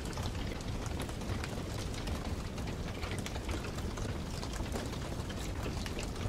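Log fire crackling in a fireplace: a steady hiss with frequent small, irregular pops.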